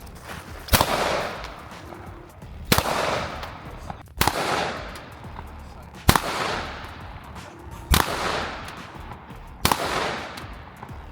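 Six gunshots fired one at a time at a steady, unhurried pace, about one every one and a half to two seconds. Each sharp crack is followed by a rolling echo that dies away over about a second.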